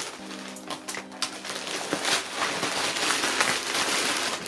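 Plastic courier mailer bag crinkling and rustling as it is handled and pulled open, busier in the second half.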